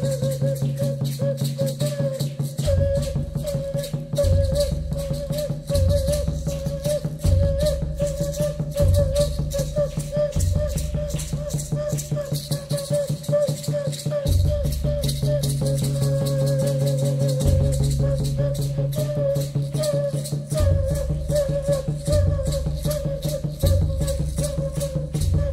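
Music: a rattle shaken in a rapid, even rhythm over a held, wavering tone and a low steady drone, with deep drum beats roughly every one and a half seconds.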